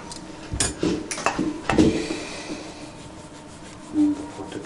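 Gloved hands rubbing a newborn kitten in cotton wool, with a few sharp clicks and clinks of metal surgical instruments in the first two seconds. A brief low hum comes near the end.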